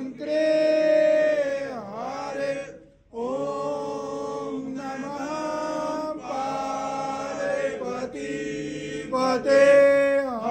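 Devotional aarti hymn chanted in long held notes that slide between pitches, with a short break a little under three seconds in.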